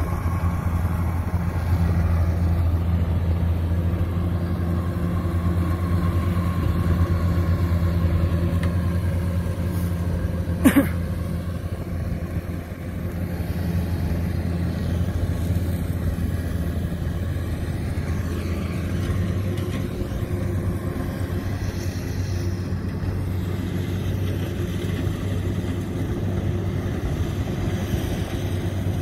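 Diesel engine of a crawler rice combine harvester running steadily while it cuts, a continuous low hum. One sharp click about eleven seconds in.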